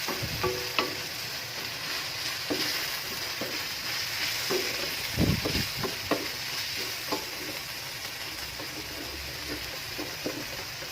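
Corned beef frying in a pan with a steady sizzle, a spatula stirring it and knocking against the pan now and then, several knocks together about five seconds in.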